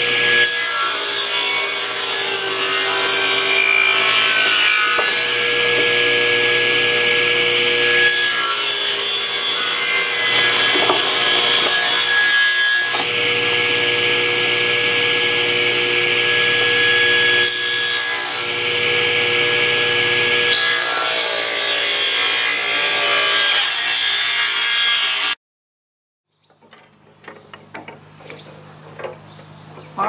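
Table saw running and ripping wooden blocks into 3/4-inch sticks, one cut after another, a steady motor whine under the rush of the blade through the wood. About 25 seconds in it cuts off suddenly, followed by a few faint knocks over a low hum.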